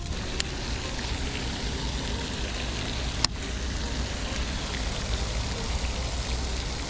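Pond fountain aerator spraying water, a steady splashing hiss. A sharp click comes about three seconds in.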